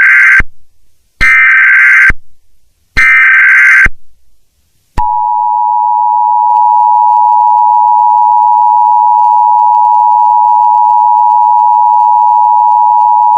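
Emergency Alert System SAME header: three short, loud bursts of screeching digital data tones about a second and a half apart. About five seconds in comes the EAS two-tone attention signal, a steady, harsh tone held for about eight seconds.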